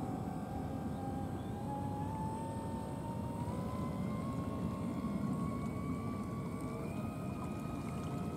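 Brushless electric motor of a 1 m radio-controlled model cruiser running under way, a thin whine that slowly rises in pitch as the boat picks up speed, over a low steady rumble.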